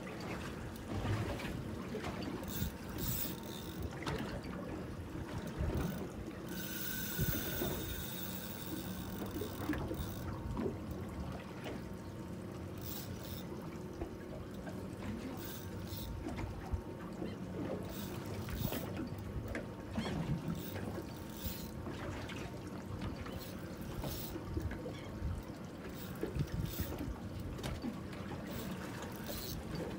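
Water sloshing against the hull of a small fishing boat at sea, with wind on the microphone and scattered short clicks.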